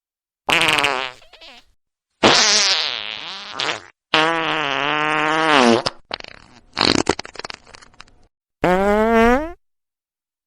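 Five fart sounds one after another, each cut off cleanly with silence between. Most are long and pitched; the fourth, past the middle, sputters and crackles, and the short last one rises in pitch.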